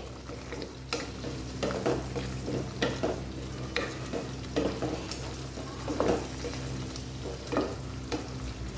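A spatula stirring paneer cubes through thick masala gravy in a nonstick pan: irregular scraping strokes about once or twice a second, over the gravy's sizzle and a steady low hum.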